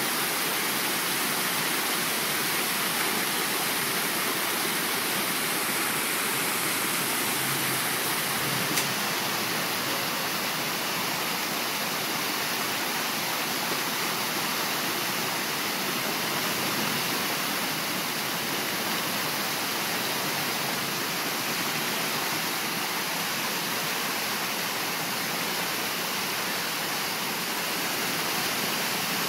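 Steady rush of creek water pouring over small rock-ledge waterfalls, with one brief click about nine seconds in.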